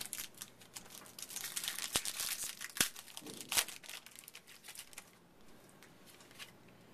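Wrapper of a 2008 Upper Deck SPX Football card pack being torn open and crinkled by hand: a rapid crackling, densest in the first three and a half seconds, that dies away after about four and a half seconds.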